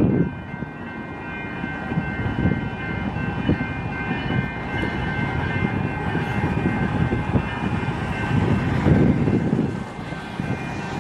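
Grade-crossing warning bell ringing steadily as a train approaches, over a low, uneven rumble.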